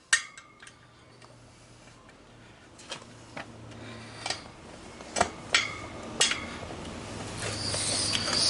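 Metal tyre levers and the steel wheel rim clinking and knocking, about eight separate sharp strikes, while an inner tube is pulled out of a motorcycle's front tyre by hand. A rough rubbing noise builds up near the end.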